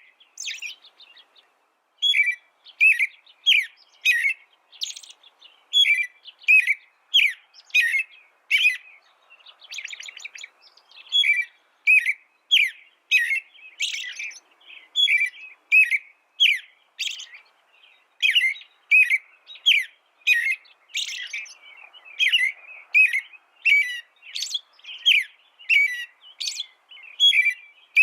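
A small songbird singing a long, continuous song of quick repeated chirps and trills, with a short pause about a second in.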